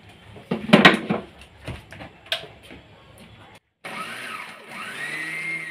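A few knocks and clatters as the mixer jar is handled, then an electric mixer grinder's motor runs dry-grinding roasted cumin, garlic and dried red chillies, its whine rising as it spins up.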